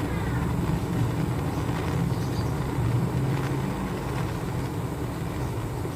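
Butane torch flame burning steadily with a low, even rushing noise while it heats a metal part to red heat.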